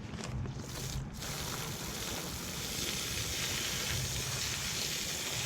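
Garden hose spraying water onto soil, a steady rushing hiss that gets louder and fuller about a second in.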